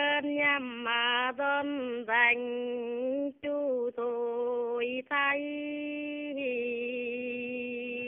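A woman singing a Dao folk song unaccompanied, in long held, slowly bending notes with brief breaks for breath. It is a sung reply in Dao call-and-response singing.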